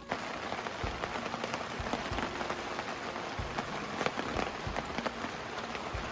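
Heavy rain falling steadily, a dense hiss studded with many separate drop hits.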